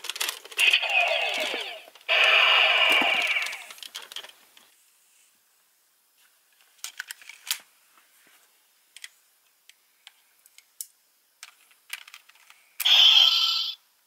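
Gokaiger toy blaster playing loud electronic blast sound effects with falling sweeps for about four seconds. Then a few seconds of small plastic clicks from handling the toys, and near the end a second loud electronic sound effect from the toy phone morpher.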